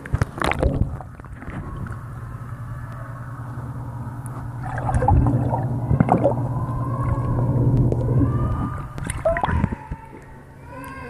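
Splash as the camera goes into the pool water, then muffled underwater sound: a steady low hum with bubbling and gurgling. Another splash near the end as it comes back up through the surface.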